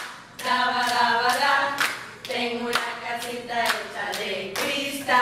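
A group of women singing together while clapping their hands in rhythm, about two claps a second.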